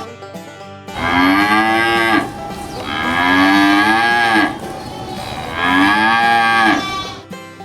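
Cattle mooing: three long moos, each rising then falling in pitch.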